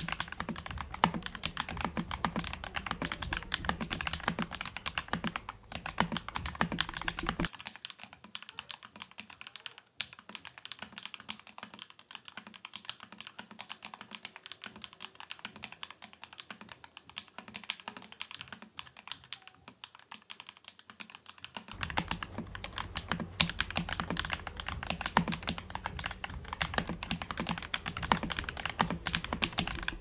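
Continuous rapid typing on a Royal Kludge RK68 mechanical keyboard with lubed KTT Red Wine linear switches, a steel plate, a foamed and tape-modded plastic case and Cherry-profile keycaps: a dense run of keystroke clacks. From about seven seconds in until about twenty-two seconds the same typing sounds thinner and duller, picked up on a small lavalier microphone.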